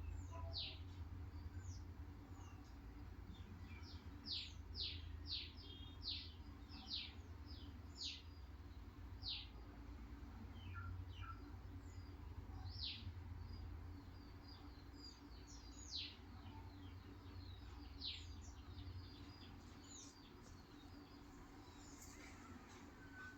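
Short, high chirps that fall in pitch, repeated irregularly and thinning out near the end, typical of small birds chirping, over a faint steady low hum.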